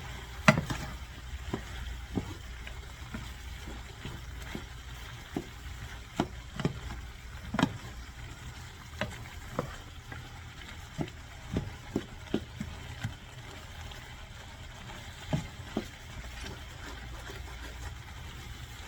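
A utensil stirring a chicken and vegetable stir fry in a frying pan, with irregular clicks and knocks against the pan over a low, steady sizzle. The knocks thin out in the last few seconds.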